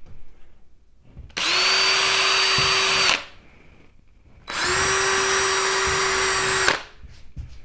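DeWalt cordless drill running at a steady speed twice, once for each of two pilot holes, each run lasting about two seconds with a short pause between. The bit goes into drywall and finds no stud.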